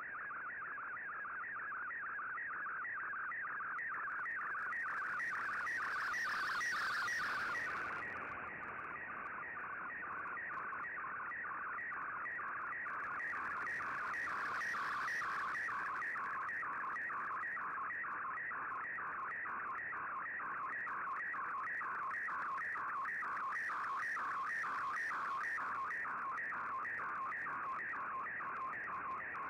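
Shortwave data broadcast sending a colour picture in Fldigi's MFSK image mode, heard through an Icom IC-R8600 receiver: a warbling tone between about 1 and 2 kHz that sweeps in a steady repeating pattern, a few sweeps a second, each sweep one scan line of the picture being received. Three stretches of hiss come and go over it.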